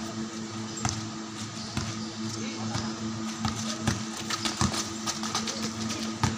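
Basketball play on a concrete court: irregular ball bounces and players' footfalls, over steady background music.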